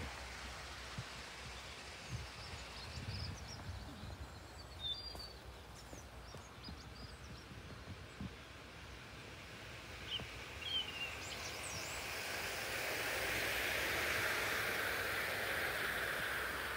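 Outdoor garden ambience with a few short bird chirps, then, over the last few seconds, an OO gauge model HST train running past on the track: the sound of its motor and its wheels on the rails grows louder and holds.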